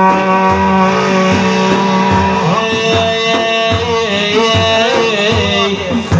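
Instrumental passage of an Arabic devotional song: a long held note, then about two and a half seconds in a winding, ornamented melody takes over, over a steady hand-drum beat.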